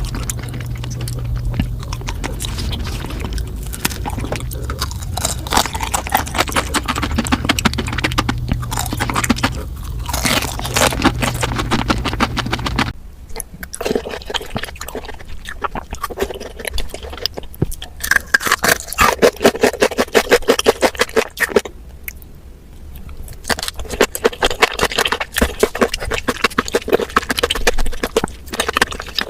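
Close-miked chewing and crunching of sweets: a dense run of small crackles and clicks, with a change of texture about halfway through.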